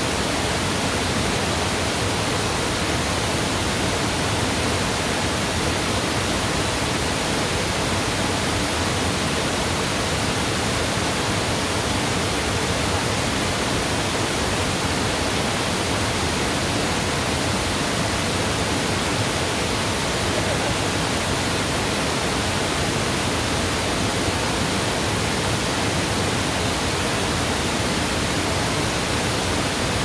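Waterfall: a steady, dense rush of falling water with no let-up.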